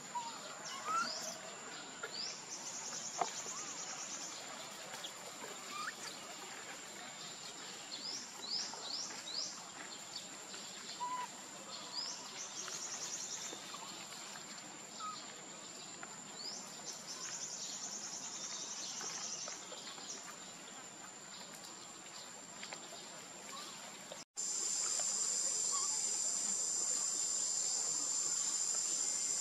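Insects droning steadily at a high pitch, with short rising bird chirps over the top. About 24 seconds in, a sudden cut brings a louder, fuller insect chorus.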